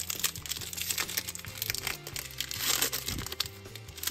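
Foil wrapper of a Panini Mosaic football card pack crinkling and crackling as it is torn open and the cards are pulled out, loudest about two and a half seconds in, over soft background music.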